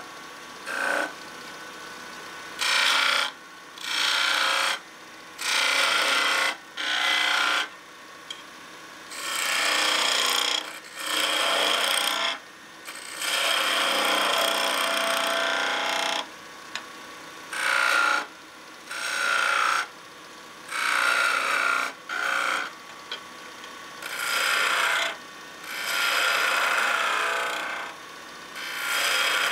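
A woodturning tool cutting wood as it spins on a lathe. The cuts come in repeated passes of about a second each, with short pauses between them, and one longer cut of a couple of seconds about midway.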